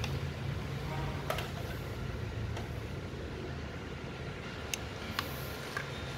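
A few light clicks and taps from handling a drill's hollow plastic battery housing and fitting metal contact strips into it, over a steady low hum. The drill motor is not running.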